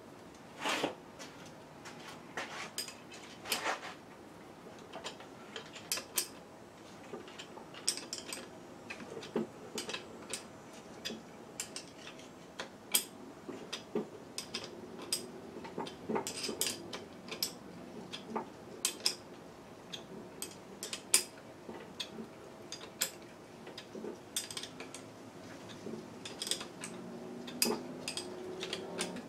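Irregular metallic clinks and clicks of hand tools and bolts being handled while refitting bolts on a cast-iron lathe drive unit.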